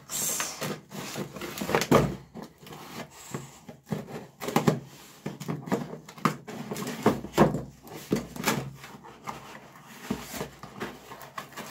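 Scissors blade slitting the packing tape along a cardboard box's seam, with a run of irregular scrapes, tape rasps and cardboard knocks as the box is cut open.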